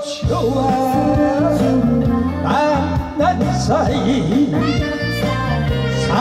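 A man singing into a microphone over a recorded backing band.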